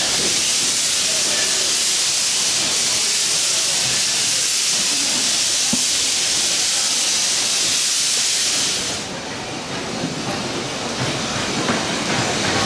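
Steam hissing loudly and steadily from a 15-inch-gauge miniature steam locomotive as it runs slowly into the platform. The hiss cuts off suddenly about nine seconds in, leaving the rumble and clicks of its wheels on the rails.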